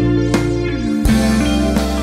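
Background music; its notes change about a second in.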